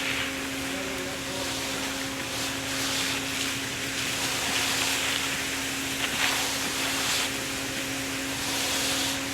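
A motor running steadily: a constant hum with an even hiss over it.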